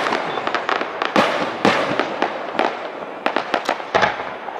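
Aerial fireworks shells bursting, about a dozen sharp bangs in quick, irregular succession with a dense crackling haze between them.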